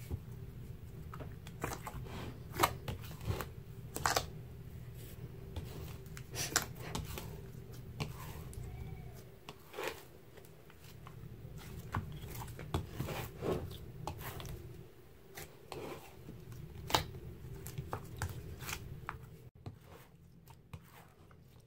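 A large batch of grey slime with sand in it, squeezed and kneaded by hand in a bowl: irregular sticky clicks, squelches and pops as it folds and stretches. A low hum sits under the first half and fades out about halfway through.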